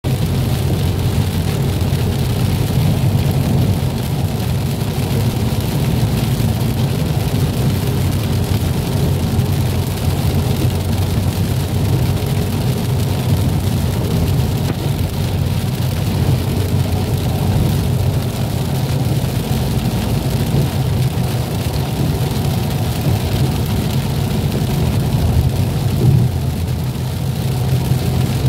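Steady engine drone and road noise of a vehicle travelling along a road. It keeps an even, unchanging pace throughout.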